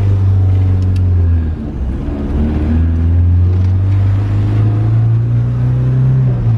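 Minivan engine heard from inside the cabin as it pulls through the gears on a first drive with a swapped-in manual transmission. The engine note dips at a gear change about a second and a half in, then climbs slowly as the van accelerates, and drops again at the next shift near the end.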